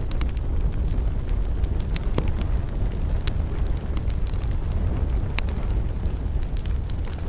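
Wood campfire burning with a steady low rumble and frequent small crackles, a few sharper pops standing out about two seconds in and again past five seconds.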